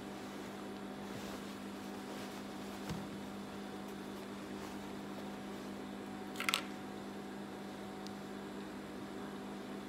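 A steady electric hum throughout, with soft rustling of denim being handled and a brief, sharper rustle of the fabric about six and a half seconds in.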